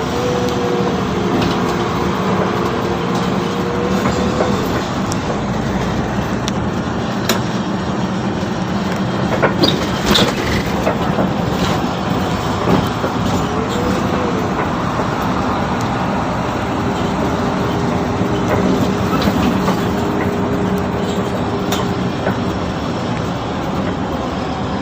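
Mercedes-Benz O530 Citaro city bus driving: steady running and road noise with a whine that rises and falls in pitch a few times, and a few short rattles and knocks around the middle.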